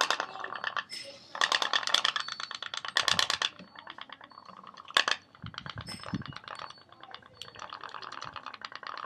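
Pop-pop toy steam boat's candle-heated engine popping: a fast stream of sharp ticks in uneven bursts that break off and restart, with a single loud click about five seconds in. It runs rough, which the owner puts down to wind cooling the boiler too much.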